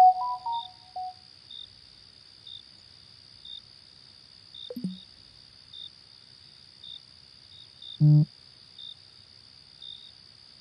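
Crickets chirping: a steady high trill with a short chirp about once a second. The last notes of an electronic melody fade out in the first second, a brief falling swoop comes near the middle, and a short loud low buzz sounds about eight seconds in.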